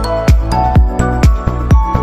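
Electronic background music with a steady beat, about two kick-drum beats a second under sustained synth notes.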